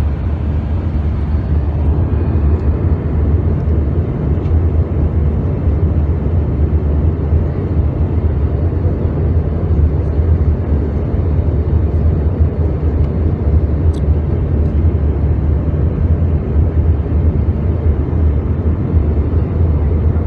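Steady cabin noise in an Airbus A320 climbing out after takeoff: a deep, even drone of the jet engines and airflow past the fuselage, heard from a seat over the wing.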